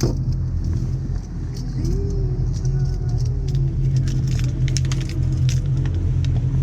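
A boat's engine running steadily with a low hum, with scattered light clicks and rattles over it.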